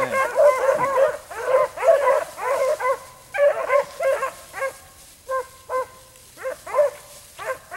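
A pack of rabbit hounds baying in quick, overlapping yelps while running a rabbit's trail. The calling is dense for the first three seconds, then thins to scattered single calls.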